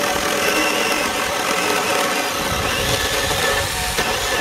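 Small battery-powered mini chainsaw running at a steady pitch as it cuts through a thin wooden log.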